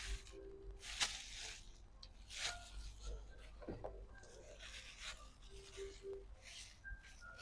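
Quiet chewing of steamed cassava cake, with faint scattered rustles and a light click about a second in.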